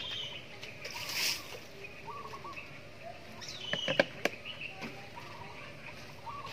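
Water splashing briefly in a plastic colander of washed vegetables about a second in, then a few sharp plastic knocks around four seconds in as the basket is handled. Birds chirp throughout.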